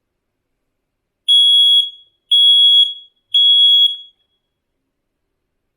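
FireAngel SB1-R battery smoke alarm sounding its test alarm: three loud, high-pitched beeps, each about half a second long and about a second apart.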